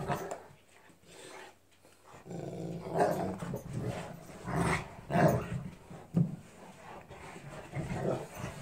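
Two Newfoundland dogs play-fighting, growling low and steadily from about two seconds in, broken by several louder short outbursts.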